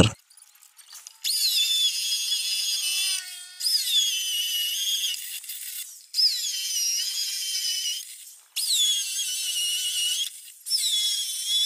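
Corded electric drill boring holes into a concrete rail to make the sockets for the balusters. It runs in about five spells of roughly two seconds each, with short pauses between them. The high whine dips in pitch as each spell starts.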